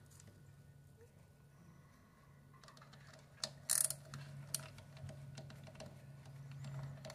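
Small screwdriver clicking and scraping on the side-plate screws of a Kastking Rekon 20RH baitcasting reel as they are backed out. It is faint for the first couple of seconds, then gives light irregular clicks, loudest a little past halfway.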